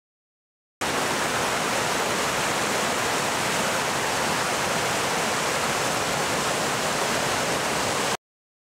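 Whitewater rushing over rocks in a fast stream: a steady rush of water that starts abruptly about a second in and cuts off suddenly near the end.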